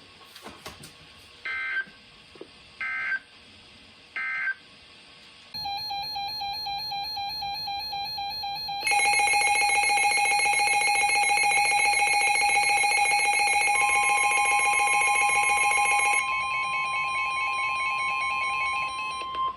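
Emergency Alert System tones between two broadcast weather warnings. First come three short, evenly spaced bursts of data tones, the digital code that marks the end of a message. Then a steady multi-tone electronic alert begins, grows much louder about nine seconds in and eases back near the end, with a single steady pure tone joining it for the last several seconds.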